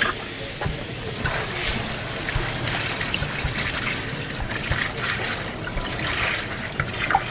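Liquid trickling and splashing, with scattered small knocks.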